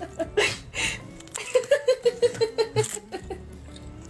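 A person laughing: a couple of sharp breathy bursts, then a quick run of 'ha-ha-ha' pulses about a second and a half in.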